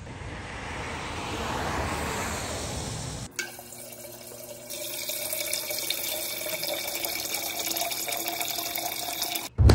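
Water from a refrigerator door's water dispenser streaming steadily into a stainless steel tumbler, starting about five seconds in. Before it comes about three seconds of outdoor background noise, which cuts off suddenly.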